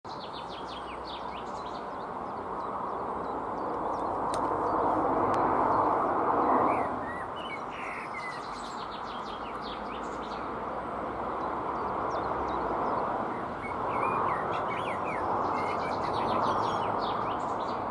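Songbirds chirping over a steady rushing background that swells twice, once about a quarter of the way in and again near the end.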